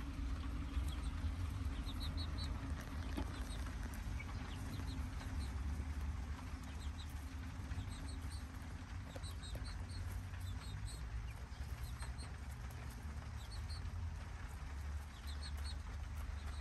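Young chicks pecking at a corn cob on dirt and straw: high peeping in quick runs of three or four, coming every second or two, with faint pecking taps, over a steady low rumble.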